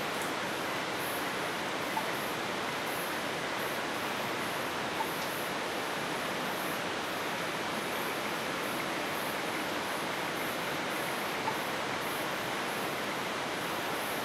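Steady rushing hiss of cloud-forest night ambience, with a faint high pulsing chirr about once a second and a few tiny clicks.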